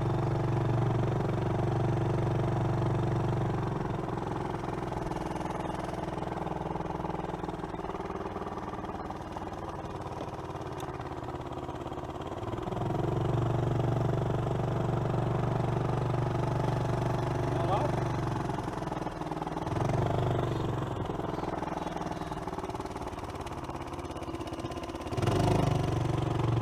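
A vehicle engine idling with a steady low hum; it drops away about four seconds in, comes back around thirteen seconds, fades again and returns louder near the end.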